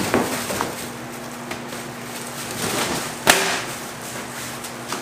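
Grill parts and cardboard packaging being handled while pulling the barrel grill's feet out of the box, with one sharp knock a little over three seconds in.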